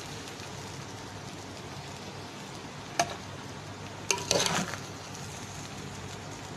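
Metal slotted spoon scooping cooked biryani rice from a pot: one sharp clink against the pot about three seconds in and a short scrape and clatter a second later, over a steady hiss.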